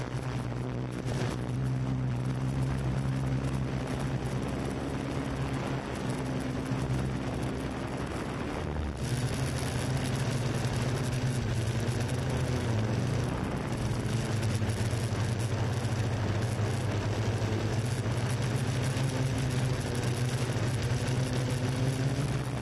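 Yuneec Q500 4K quadcopter's electric motors and propellers running, a steady hum over a rushing hiss. About nine seconds in the hum gets louder, and it wavers in pitch now and then as the motors change speed while the drone moves.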